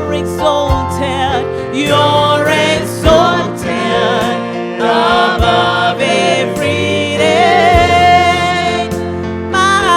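Gospel worship music: several voices singing with vibrato over an accompanying band with regular drum beats.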